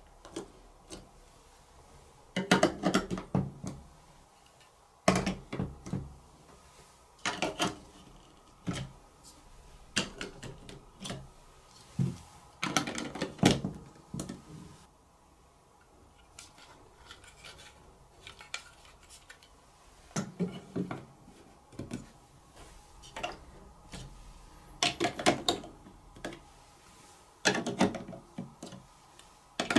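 Large plastic toy building blocks being handled and pressed together: clusters of sharp plastic clicks and clatter every few seconds, with a quieter spell around the middle.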